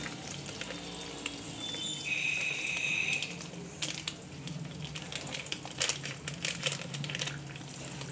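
Instant popcorn premix being squeezed from its packet into a hot pressure cooker: the foil-lined packet crinkles, and the kernels and oil drop into the pot with a dense run of clicks and patter in the middle. A low steady hum runs underneath, and a short high steady tone sounds about two seconds in.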